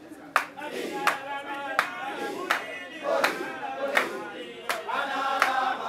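Voices singing with a steady beat of hand claps, about one clap every three quarters of a second.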